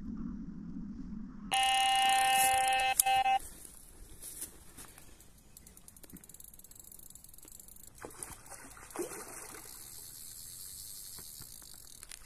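Electronic carp-fishing bite alarm sounding one loud, steady high tone for about two seconds with a brief break, the signal of a fish running with the bait and taking line. Fainter scattered clicks follow.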